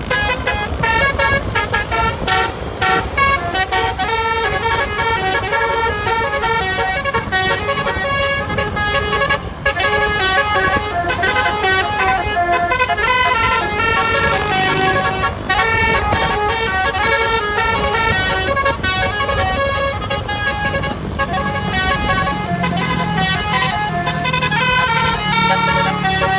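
An Indonesian bus's basuri melody horn playing a tune: a long run of pitched horn notes stepping up and down in quick succession, over a low rumble.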